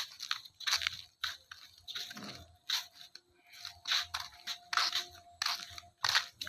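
Footsteps crunching on a gritty, sandy path, an uneven step about every half second.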